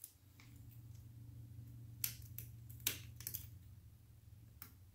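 Several small, sharp metal clicks, starting about two seconds in, as snap-ring pliers and fingers work at the snap ring on top of a Yamaha Raptor 700's clutch release arm, with a faint steady low hum underneath.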